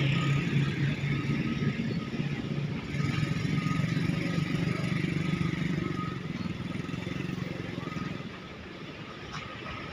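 A diesel engine of heavy equipment runs steadily with a low hum, dips briefly about three seconds in, and fades about eight seconds in.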